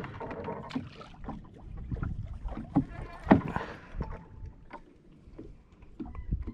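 Scattered knocks and bumps on a wooden fishing boat over a low rumble of wind and water; the loudest knock comes about three seconds in.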